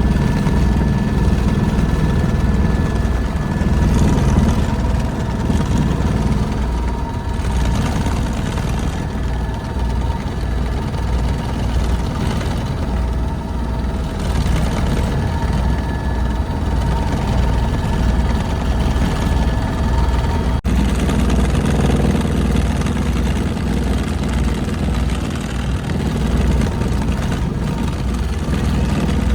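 Helicopter in flight heard from inside the cabin: a steady, fast low rotor beat with a constant whine above it.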